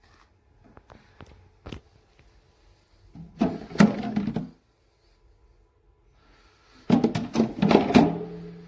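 Handling noise from a portable car fridge and its removable parts: a few light clicks, then two spells of knocking and clattering as parts are moved and set in place.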